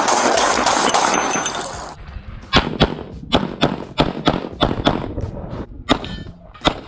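For about two seconds a loud, rough noise fills the sound, then cuts off abruptly. After that a handgun fires a rapid string of sharp shots, mostly in quick pairs about two-thirds of a second apart, as the shooter puts two rounds on each target in a practical-shooting stage.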